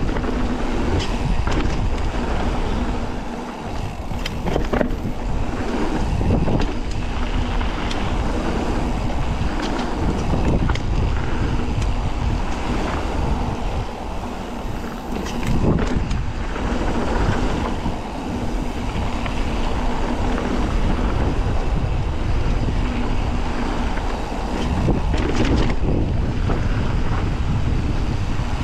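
Wind buffeting the microphone of a camera carried on a mountain bike while riding, with steady tyre rumble on the trail and scattered knocks and rattles from the bike going over rough ground.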